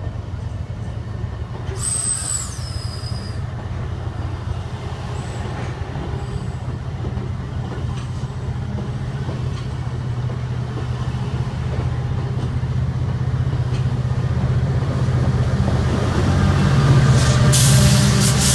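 Amtrak Cascades passenger train departing, its cars rolling past over a steady low diesel drone that grows louder as the F59PHI diesel locomotive comes close near the end, where a rush of high hiss joins it. About two seconds in, a brief high squeal falls in pitch.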